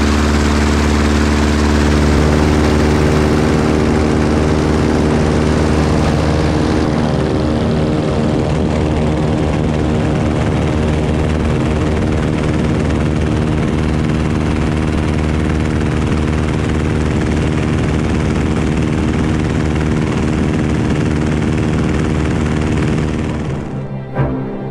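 Waco biplane's radial engine and propeller running steadily at high power through the takeoff run. The engine sound cuts off abruptly near the end.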